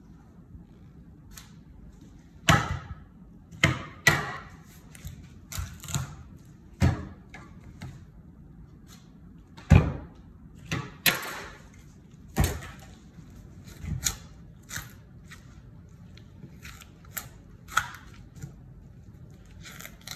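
Knife and raw lamb legs knocking and slapping on a wooden butcher's block while the meat is trimmed: irregular sharp knocks about once a second, some followed by short scraping sounds.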